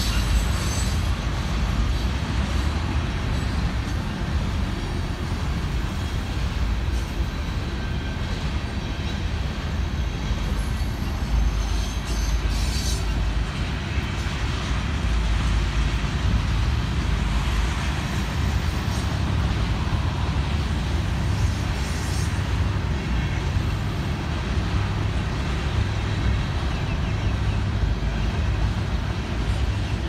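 Freight train of oil tank cars rolling past: a steady rumble of steel wheels on rail.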